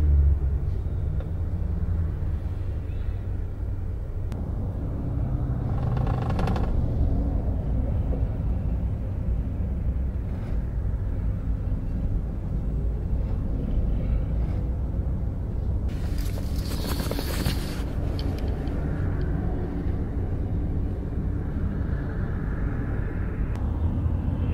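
Steady low rumble of a double-decker highway coach's engine and road noise, heard from inside the cabin as it drives, with a brief hiss about two-thirds of the way through.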